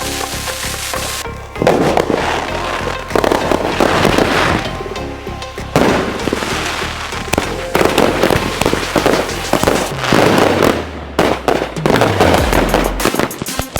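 Consumer fireworks going off in repeated volleys of bursts and dense crackling, with background music and a steady bass line underneath.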